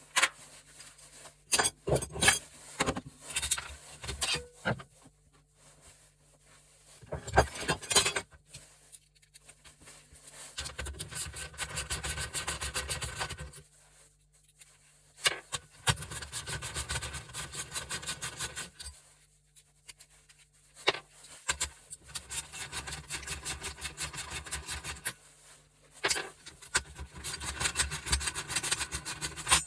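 Hand tools working on gas-stove metal parts being stripped for scrap. A few scattered knocks and clanks come first, then four spells of fast, repeated rasping strokes of a few seconds each.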